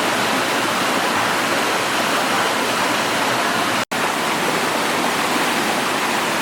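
Waterfall pouring, a steady rushing noise that cuts out for an instant about four seconds in.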